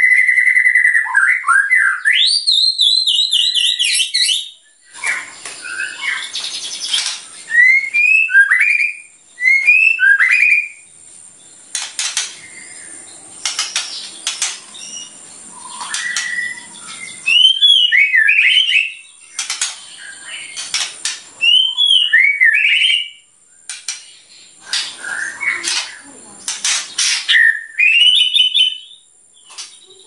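White-rumped shama singing loudly: a long steady whistle at the start, then rapid rising and falling whistled phrases mixed with sharp clicking, chattering notes, in repeated phrases with short pauses between them.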